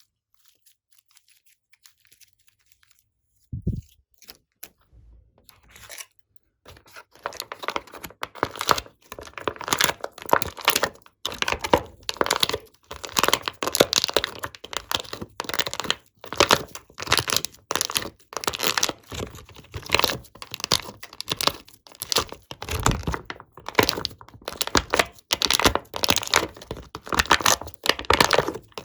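Slime being kneaded and squished by hand, a dense, fast crackling and crunching that starts after a few seconds of near silence broken by one soft thump.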